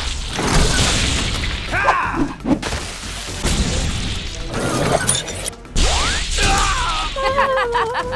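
Cartoon action sound effects: a run of crashes and impacts with whooshes and an explosion blast.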